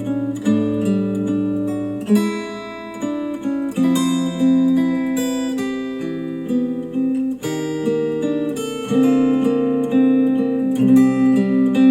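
Acoustic guitar music, strummed and plucked chords, played back through KEF R3 bookshelf speakers.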